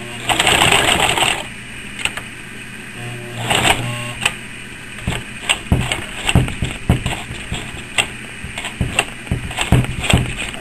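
Sewing machine stitching through thick sheath material: a short run of fast stitching, a second brief run, then slow, uneven clunks of the needle punching through. The machine is struggling and jamming in the thick material.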